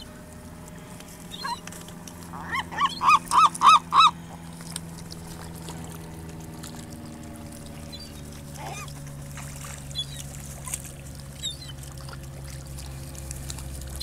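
Gull calling a quick series of about six loud, arching yelps a couple of seconds in, with a few fainter single calls later. A steady low hum runs underneath.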